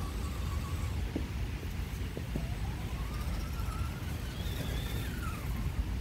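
Electric motor and gear drivetrain of a Vaterra Ascender radio-controlled crawler whining as it drives, the pitch rising as it speeds up, climbing higher for about a second past the middle and falling away near the end. A steady low rumble sits under it, with a few light clicks.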